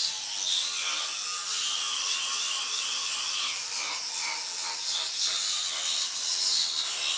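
Battery-powered Oral-B vibrating toothbrush buzzing steadily in the mouth, its bristles scrubbing the teeth with a hissing sound.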